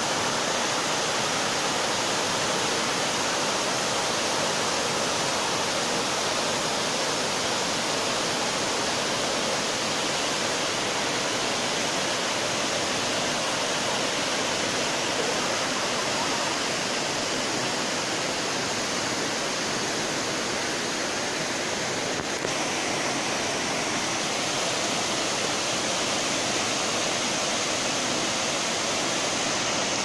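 Steady rush of water from a waterfall plunging into its pool and the stream tumbling over boulders below it.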